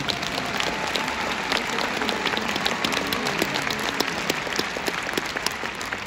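Audience applauding: a dense, steady patter of many hands clapping, easing slightly near the end.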